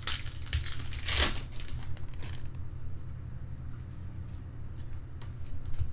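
Trading cards handled by hand, a papery rustling and sliding that is loudest in the first couple of seconds, then a few faint clicks, over a low steady hum.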